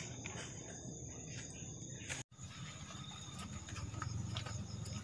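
Faint, steady chirring of insects, which drops out for an instant a little over two seconds in.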